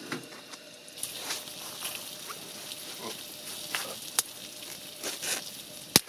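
Small wood fire in a titanium tent stove crackling, with scattered sharp ticks over a steady hiss; the fire is burning low and has just been fed a little more wood.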